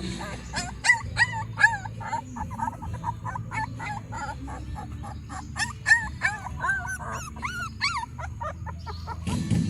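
Dogs whimpering and yipping: many short, high calls that rise and fall, several a second and overlapping each other.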